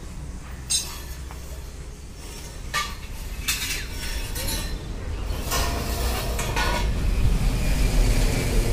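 Scattered light clinks and knocks of stainless steel tubing, with a few single strikes and then a quick cluster, over a steady low rumble that grows louder toward the end.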